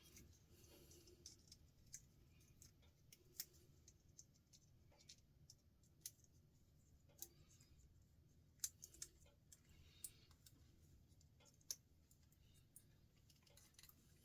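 Faint, scattered clicks and ticks of small parts being handled and snipped while plastic ends are cut off brass connectors, a click every second or so with a few sharper ones.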